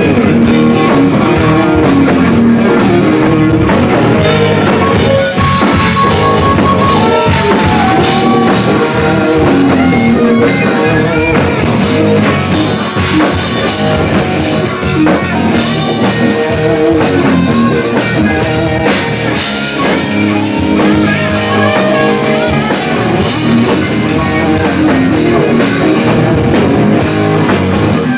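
Live rock band playing with electric guitar, bass guitar and drum kit, in an instrumental stretch with no singing.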